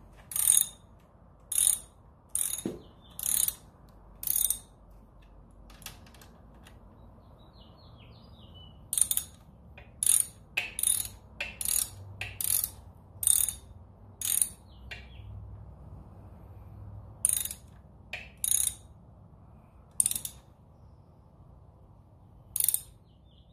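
Small hand ratchet clicking in short spurts, about seventeen in all with a pause of a few seconds partway through, as connecting-rod cap bolts are run down and snugged up by hand.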